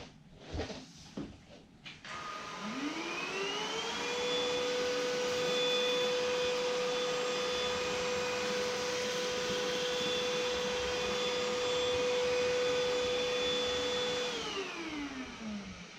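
Proscenic P8 cordless stick vacuum in max mode: a few clicks, then the motor spins up with a rising whine about two and a half seconds in. It runs steadily with a rush of suction for about ten seconds, then winds down with a falling whine near the end.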